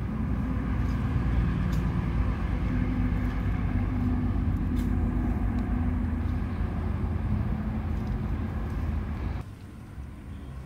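A motor engine running steadily with a low rumble, cutting off suddenly near the end.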